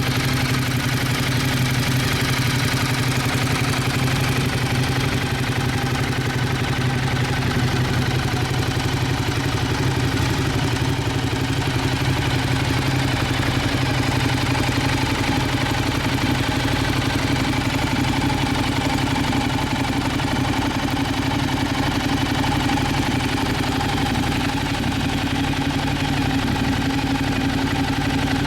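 Ducati Diavel's L-twin engine idling steadily through an aftermarket silencer.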